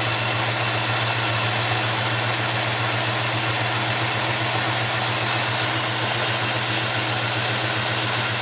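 Chevrolet C10 pickup's engine idling steadily, warmed up after a drive and heard up close under the open hood, a constant hum with a steady hiss over it.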